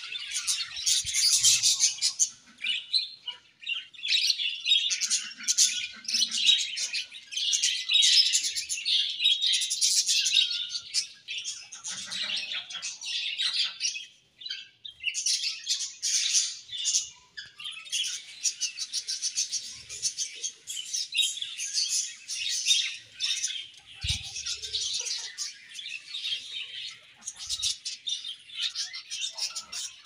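A colony of budgerigars chirping and warbling together, a dense, busy mix of many overlapping high chirps and twitters, with a brief lull about halfway through.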